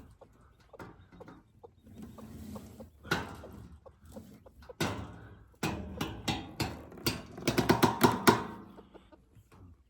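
Bantam hen clucking, with a rapid run of sharp knocks and rattles in the second half that is the loudest part.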